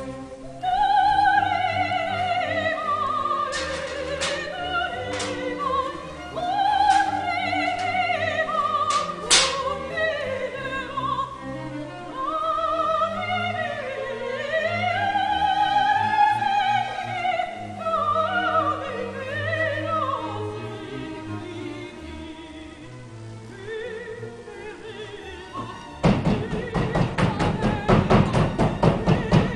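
Music: operatic singing with orchestral backing, the voice gliding up and down with wide vibrato, with a few sharp knocks over the first ten seconds. Near the end it gives way abruptly to loud, fast percussion.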